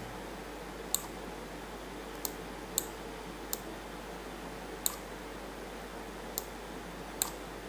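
Computer mouse button clicking: about seven separate short, sharp clicks at uneven intervals, over a faint steady background hum.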